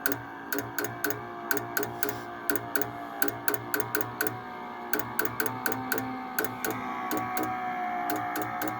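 York gas furnace's relay chattering: rapid sharp clicks about three to four a second, each with a brief low buzz, over a steady whine. This is the sign of a Nest thermostat not getting steady 24 VAC.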